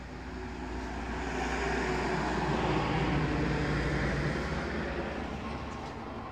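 A passing vehicle: a rushing engine noise that swells to a peak about three seconds in and then fades.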